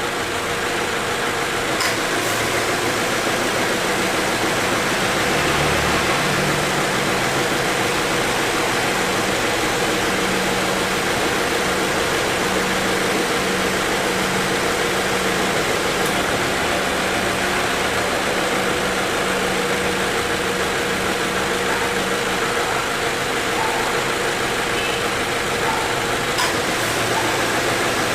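2018 Subaru XV idling with its air-conditioning compressor cycling on, making an abnormal noise as it starts, a sign of mild compressor wear. A steady hum sets in a few seconds in and stops about three-quarters of the way through.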